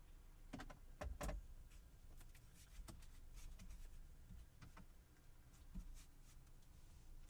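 Faint scattered clicks and taps of a screwdriver and plastic dashboard trim as two Phillips head screws are taken out, with a few louder knocks about a second in.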